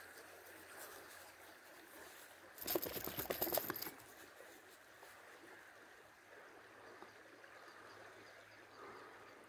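Faint, steady flow of a nearby river, broken about two and a half seconds in by a loud crackling burst that lasts a little over a second.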